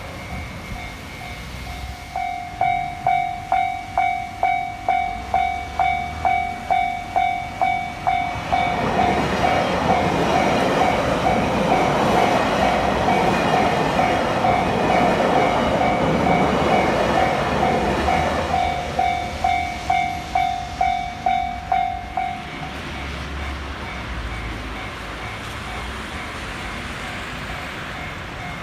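Japanese railway level-crossing alarm ringing its electronic bell about twice a second, while a train passes over the crossing in the middle, its rumble swelling and fading over about ten seconds. The bell stops a few seconds after the train has gone, leaving road traffic noise.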